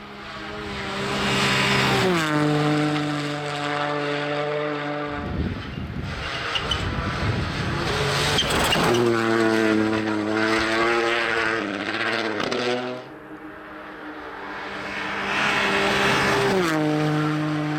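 Turbocharged four-cylinder rally cars at full throttle, several in turn: the engine note holds steady at high revs, then drops sharply in pitch at about two, nine, twelve and seventeen seconds in as the driver lifts or changes gear. The sound swells as each car comes closer and fades as it goes, with a rush of tyre and snow noise around five seconds in.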